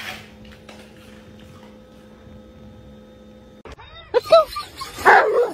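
A dog's short, high whining yelps starting about four seconds in, then a louder, harsher cry near the end. Before them there is only a faint steady hum.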